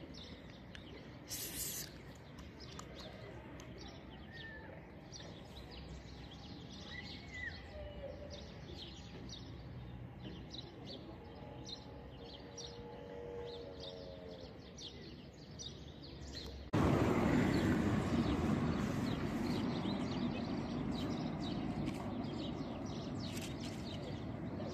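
Outdoor ambience with small birds chirping repeatedly in the background. About two-thirds of the way through, a louder, steady rushing noise cuts in suddenly and carries on.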